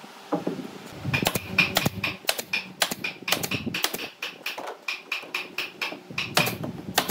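Pneumatic nail gun firing in quick succession, about three sharp shots a second, driving nails into a pine cabinet frame.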